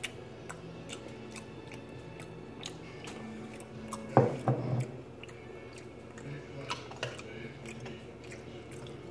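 A person chewing a mouthful of food, with soft scattered mouth clicks and one short vocal sound about four seconds in.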